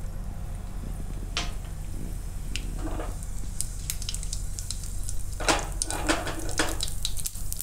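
Mustard seeds sizzling and crackling in hot oil in a kadai, as the start of a tempering (vaghar). The crackles are scattered at first and grow much denser after about three and a half seconds, over a steady low hum.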